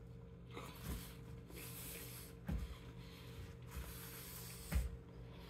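Quiet eating sounds from a man eating cup noodles with a fork: a few short hissy breaths or slurps and two soft knocks of the fork against the cup, about two and a half seconds in and near the end.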